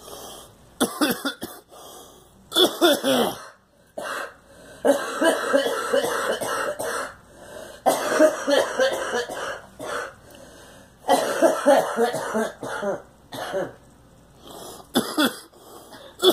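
A girl coughing in repeated fits: about six bouts of coughing separated by short pauses, the longest bouts lasting around two seconds.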